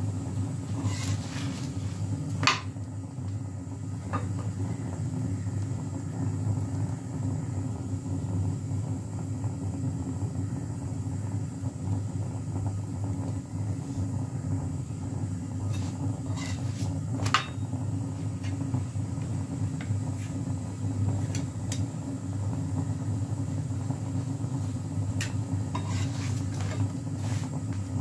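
Steady low hum from the stove heating a paratha on a tawa, with a few sharp clicks: one early, one in the middle and several near the end.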